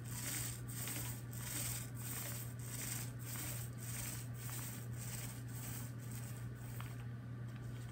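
Small paint roller rolled back and forth through a thick coat of wet glaze on a wooden tabletop: a soft swishing, about two strokes a second, stopping about a second before the end.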